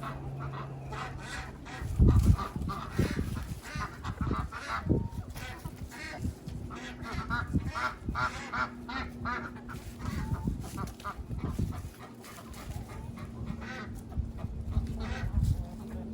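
Backyard poultry, ducks and chickens, calling over and over in short repeated honking calls. Several dull thumps come in between, the loudest about two seconds in.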